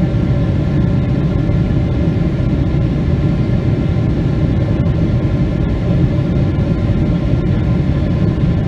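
Cabin noise of a Boeing 777-300ER from a seat beside its GE90-115B engine: a steady low rumble with faint steady tones above it, the engines at climb power after take-off.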